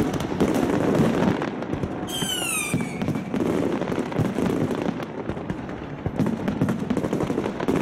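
Fireworks going off: a dense run of bangs and crackles, with a falling whistle about two seconds in.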